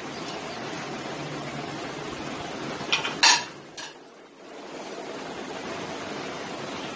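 Metal kitchen utensils clinking three times against cookware about three seconds in, the middle clink the loudest, over a steady hiss.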